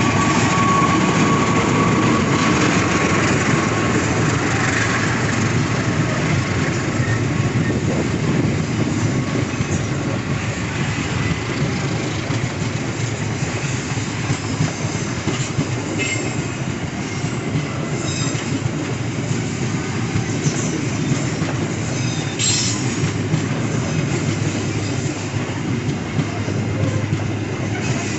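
A train running past, a steady loud rumble of wheels on the rails, with a few short high squeals and clicks in the second half.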